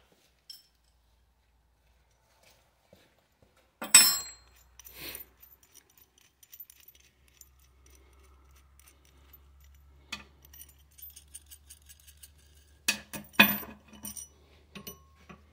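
Steel inner tie rod puller being handled and fitted onto a steering rack's tie rod: metal clinks and clanks, with a loud clank about four seconds in, small clicks through the middle and a cluster of clanks near the end.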